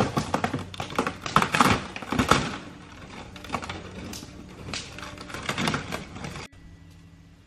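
Rapid, irregular crackling and clicking, loudest in the first two seconds, that stops abruptly about six and a half seconds in. Faint background music continues underneath.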